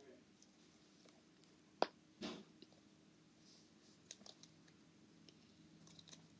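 Near silence broken by small handling noises: one sharp click about two seconds in, a soft rustle just after it, and a few faint ticks later on.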